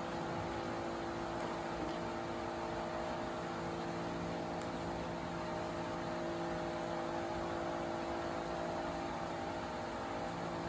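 Steady room ventilation noise: an electric fan whirring, an even rush of air with several constant low hum tones.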